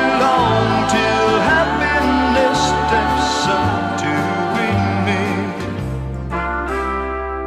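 Instrumental passage of a pop song, with horns over a walking bass line that changes note about once a second.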